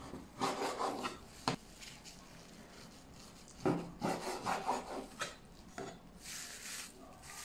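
A Chinese cleaver sawing back and forth through raw pork tenderloin in two bursts of quick strokes, cutting it into large flat slices, the blade scraping on a wooden cutting board. There is a sharp knock of the blade on the board about a second and a half in.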